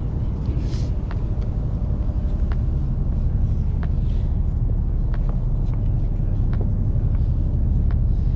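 Steady low rumble of open-air noise with faint, scattered small clicks.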